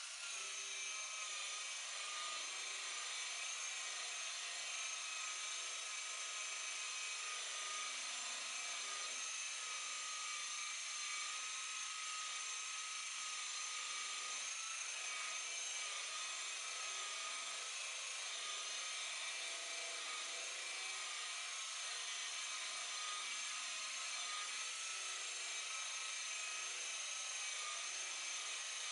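Electric buffer/polisher motor running steadily with an even, high-pitched whine, buffing oxidation off a boat's fibreglass hull.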